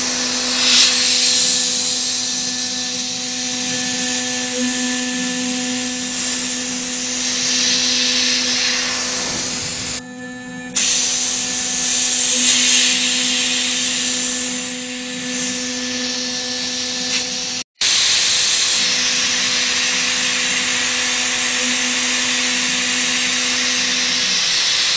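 CNC router spindle running at a steady high-pitched whine while its engraving bit cuts into a brass plate, over a constant hiss of cutting noise. The sound drops briefly about ten seconds in and cuts out for a moment a little past halfway.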